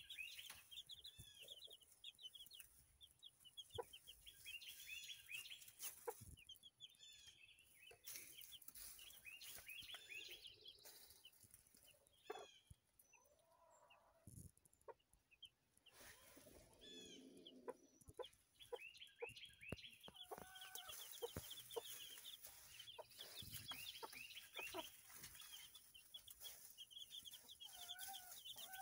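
Baby chicks peeping faintly in quick runs of short, high chirps that dip in pitch, with a few lower clucks from the hen and scattered light clicks.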